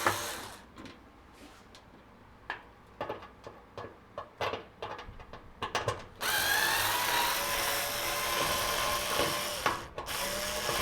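Cordless driver backing out screws from a dryer panel: a short run at the start, a stretch of small clicks and knocks as screws and parts are handled, then the driver running again for about four seconds, its pitch rising as it spins up.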